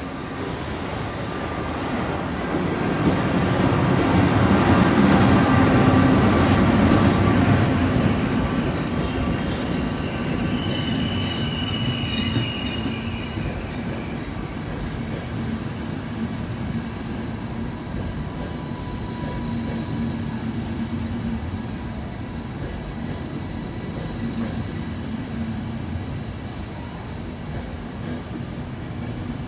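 Intercity passenger train arriving behind an E414 electric locomotive: the locomotive's rumble is loudest as it passes a few seconds in. A high-pitched squeal from the braking wheels follows around ten seconds in, then the coaches keep rolling slowly by with a steady, quieter rumble.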